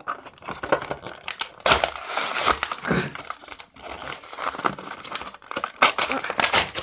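Stiff plastic blister packaging crinkling and the cardboard backing card tearing as a diecast toy car is wrestled out of its pack, in irregular crackles with louder bursts about two seconds in and near the end.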